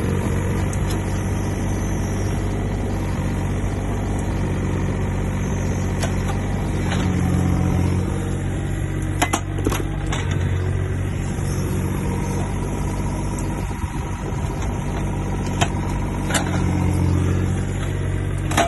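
Takeuchi TB125 mini excavator's diesel engine running steadily, its note rising twice as the hydraulics take load. A few sharp knocks come in the middle and again near the end.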